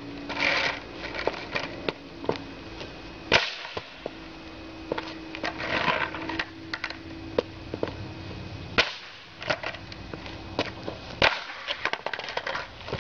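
Skateboard tricks on rough asphalt. The wooden deck and tail crack sharply against the ground, and short stretches of gritty wheel noise come as the board rolls. Three of the cracks, about 3, 9 and 11 seconds in, are the loudest.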